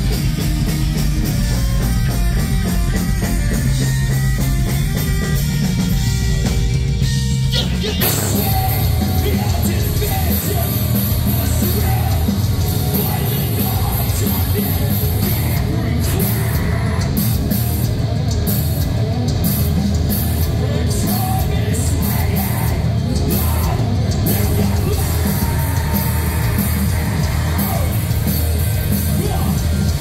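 Live rock band playing loud with vocals, heard from the crowd; about eight seconds in the sound cuts abruptly to another band's set, heavier and denser.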